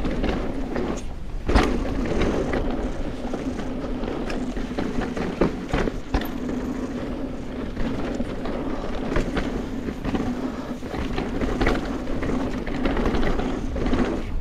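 Bicycle rolling over rough ground: a steady rolling rumble with frequent short knocks and rattles from the bumps.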